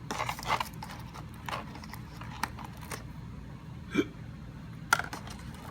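Small plastic clicks and taps from handling a 1:12 action figure while its hands are pulled off and swapped, with a sharper snap near the end.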